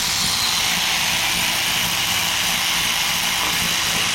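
A power tool running steadily without hammering while the last few bolts are taken out of the engine.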